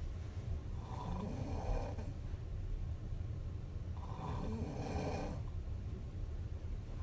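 A young woman snoring in her sleep: two snoring breaths about three seconds apart, each starting with a short rising tone. A steady low rumble runs underneath.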